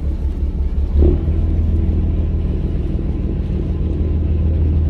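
Engine running steadily with a deep rumble, a short thump about a second in, after which it runs a little louder.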